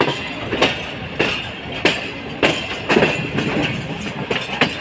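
Passenger train's wheels clattering over rail joints and points at low speed, a sharp clack a little more than every half second over a steady running rumble. A faint high wheel squeal runs under it.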